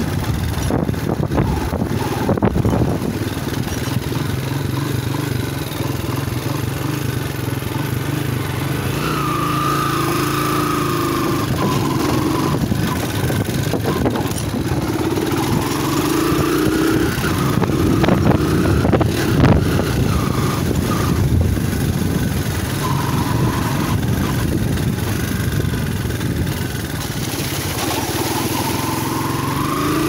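Motorcycle engine running under way. The engine note rises and falls several times with the throttle.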